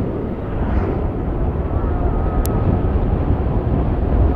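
Motorcycle under way: steady engine drone and rushing wind noise. A faint high whine comes in about two seconds in, and there is a single short click about halfway.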